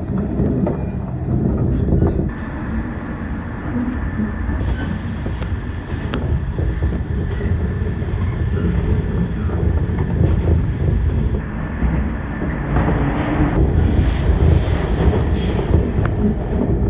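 415-series electric multiple unit running on the line, a steady rumble of motors and wheels on rail with occasional sharp clicks.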